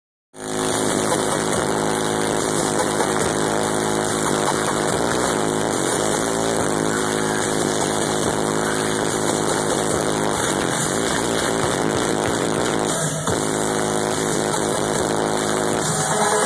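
Loud live electronic dance music played through a concert sound system, dominated by a buzzing, distorted synth, starting abruptly.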